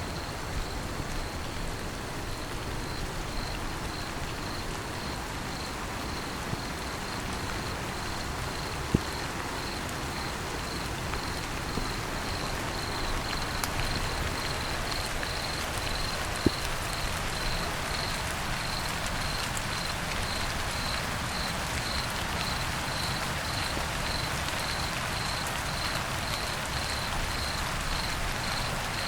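Steady rain falling, with a cricket chirping over it in a steady, evenly spaced run of high chirps. A couple of single drops land louder.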